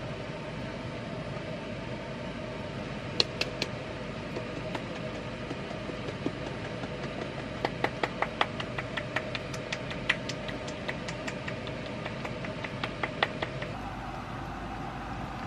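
Steady kitchen background hum, with a few sharp clicks about three seconds in, then a run of quick light clicks and taps as a small jar of dried parsley is shaken over a pan of pasta.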